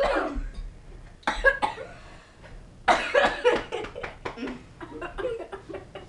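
Girls' voices in several short non-speech bursts, coughing and laughing.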